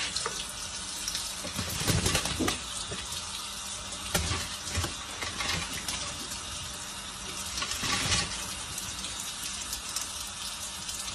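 Kitchen tap running, water splashing onto a bathing parrot and the wooden board under it, with a few louder splashes.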